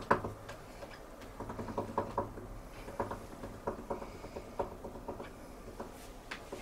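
Light scratching and tapping on the carpeted platform of a cat tree, in short irregular strokes about two or three a second, with a sharp knock at the very start.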